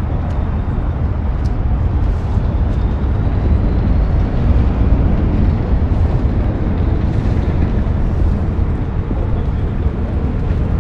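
Steady rumble of city traffic.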